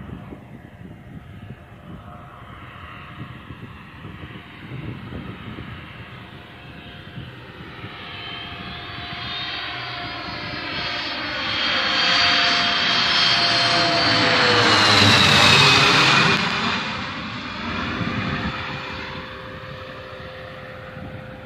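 Cessna 525 CitationJet's twin turbofan engines on landing approach: the jet whine grows louder, peaks as the aircraft passes close overhead about three quarters of the way in, its pitch falling as it goes by, then fades as it heads away.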